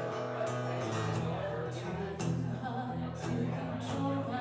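Live acoustic duo: a woman singing a melody into a microphone over a strummed acoustic guitar.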